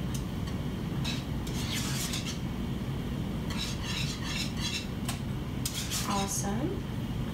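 Wire whisk beating hot, thickened cream-pie filling in a metal saucepan, the wires clicking and scraping against the pot in quick runs, dissolving leaf gelatin into the filling.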